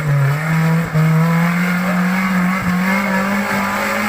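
Car engine sound, a steady drone that slowly rises in pitch.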